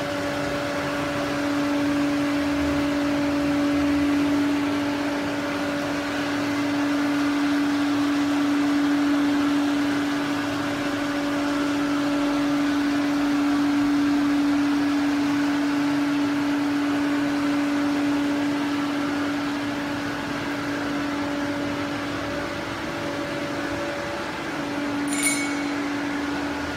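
Food retort sterilizer running with its pump motor: a steady machine hum with a constant low tone. A short sharp click near the end.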